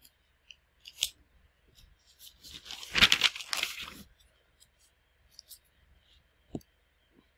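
Rough, scratchy handling noise close to the microphone for about two seconds in the middle, with a faint click before it and a soft knock near the end.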